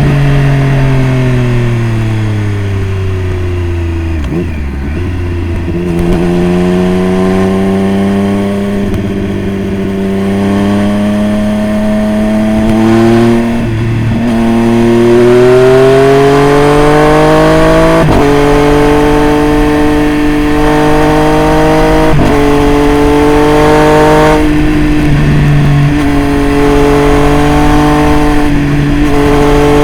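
Triumph Street Triple RS inline three-cylinder engine running through an aftermarket Jeskap full exhaust with K9x muffler. The revs fall for the first few seconds, then climb slowly, with several brief breaks in the note along the way.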